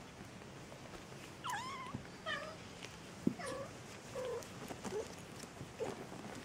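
Maine Coon kittens mewing: about six short, high-pitched mews, the first about a second and a half in, falling then wavering.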